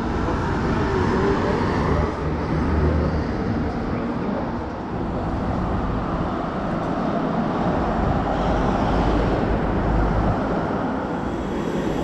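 Steady road traffic noise: cars and trucks passing, swelling and easing a little as they go by.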